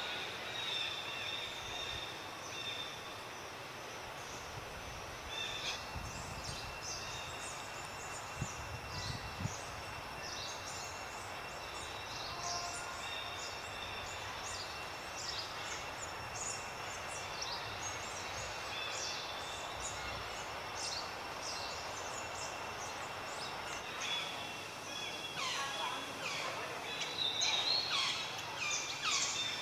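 Outdoor ambience: many short, high chirps over a steady high-pitched drone, the chirping busier and louder in the last few seconds.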